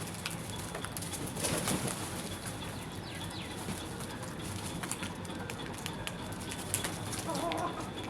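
Birds calling, with a short rustling burst about a second and a half in and a brief wavering call near the end, over a steady low background hum.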